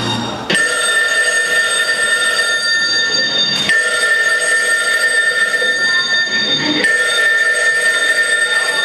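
Telephone ringing sound effect played over the PA: a loud steady electronic ring made of several fixed tones, which starts about half a second in and restarts about every three seconds.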